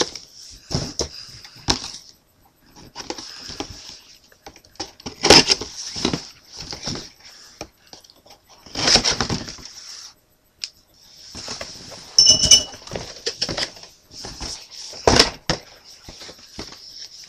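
Model kit packaging being handled: plastic bags and box parts crinkling and rustling in repeated bouts, with scattered clicks and knocks.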